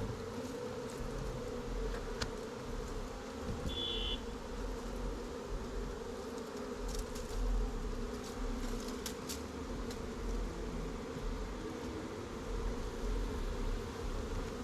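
A mass of honey bees buzzing, a steady dense hum from the swarm being moved into a hive box, over a low rumble.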